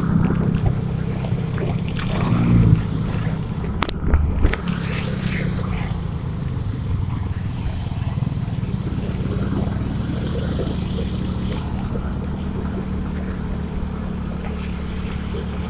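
Motorcycle engine running steadily while riding, with wind noise on the microphone and a few low thumps in the first few seconds.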